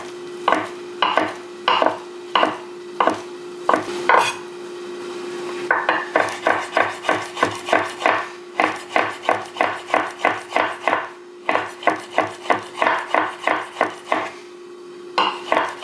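Chef's knife chopping pressed tofu on a wooden cutting board. The first cuts are single strokes about every half second. After a short pause comes a fast run of about four chops a second, broken by brief stops near the middle and near the end. A steady low hum sits underneath.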